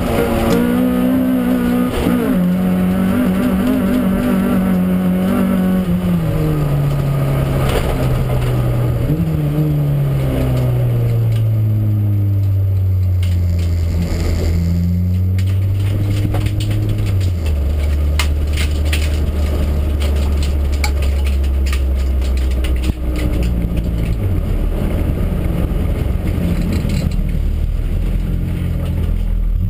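Nissan Sunny race car's engine heard from inside its stripped cabin, its revs falling in stages over the first half, then running low and steady. Rattles and sharp clicks from the bare interior and chassis, loudest in the second half.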